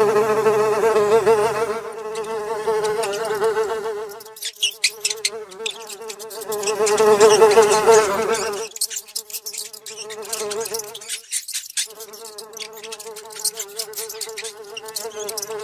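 Fly buzzing, a wavering drone that swells and fades and cuts in and out several times, with quick clicks and ticks in the gaps.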